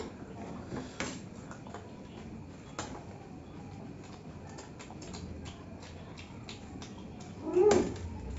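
Eating sounds: steel spoons clinking and scraping on steel plates, with chewing of puffed rice, as scattered light clicks. A brief vocal sound from one of the eaters comes near the end.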